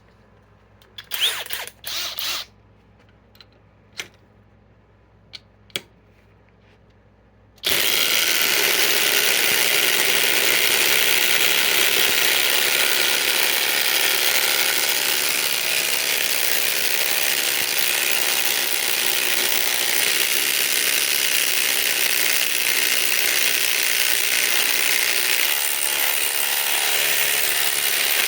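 A few scattered clicks and knocks, then about eight seconds in the cordless Flex impact wrench and impact driver start hammering together and keep on hammering, driving fasteners down in a head-to-head race.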